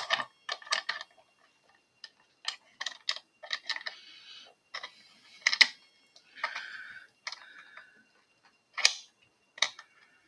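A padlock being handled and positioned in its mount: irregular clicks and taps, with a few short scrapes in between.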